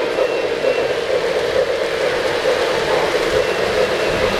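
O-gauge three-rail model freight train rolling past, its metal wheels running on the track with a steady rattling rumble.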